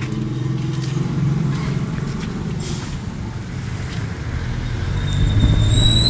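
A motor vehicle engine running steadily with a low rumble, growing louder in the last second or so, with a brief high-pitched tone just before the end.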